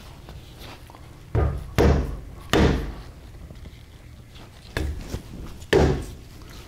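A rubber mallet strikes the VW swing-axle spring plate and swing arm with about six dull thumps in two groups, tapping the plate round to line up its alignment marks while setting the rear ride height.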